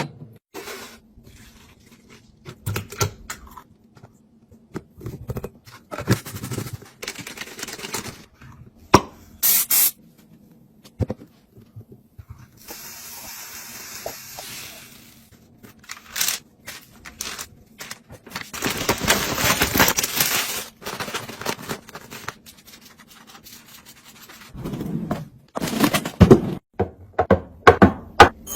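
Food packaging and containers being handled and put away: plastic wrappers rustling and rubbing, items scraping and knocking as they are set down, in irregular bursts with a few longer stretches of rustling.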